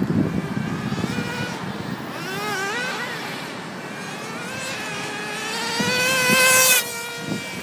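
Traxxas Jato nitro RC truck's small glow engine revving up and down as it is driven, its pitch rising and falling. Near the end it holds a long, high full-throttle run, the loudest part, which cuts off sharply.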